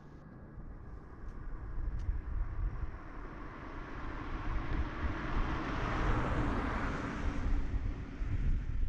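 A road vehicle passing close by on the highway: its noise swells over several seconds, peaks near the end and drops away suddenly.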